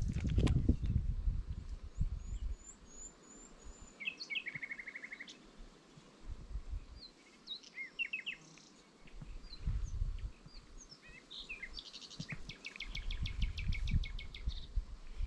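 Songbirds calling and singing, with a rapid trill about four seconds in and a longer one near the end. A low rumble comes and goes underneath.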